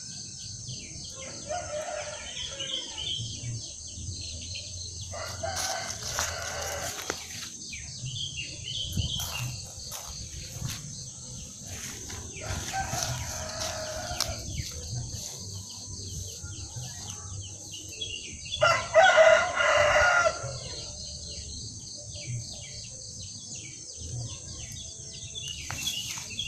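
A rooster crowing four times, each crow about two seconds long, the loudest about two-thirds of the way through.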